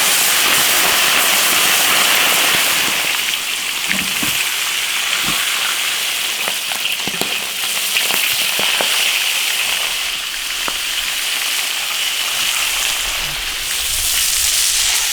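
Fish head frying in hot oil in a wok: a loud, steady sizzle with scattered crackling spatters, easing slightly after about three seconds.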